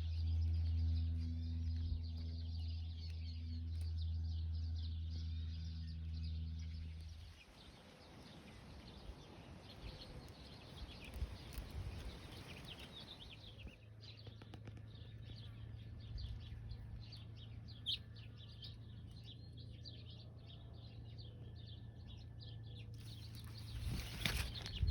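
Small birds chirping faintly over a steady low hum that stops about seven seconds in; a fainter low hum sets in about halfway through.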